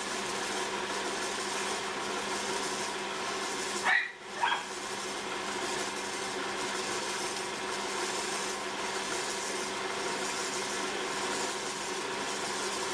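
A dog barks twice in quick succession about four seconds in, over the steady hum of the spinning potter's wheel.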